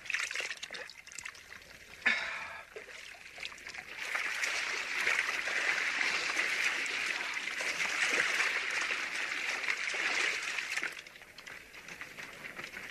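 Water trickling and running steadily. It starts about two seconds in, grows louder from about four seconds, and drops away about eleven seconds in.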